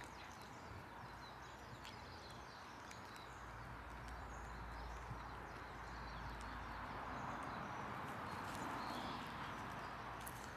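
Cats chewing and tearing fresh cat grass: faint, irregular crisp crunching clicks over a low steady outdoor hiss.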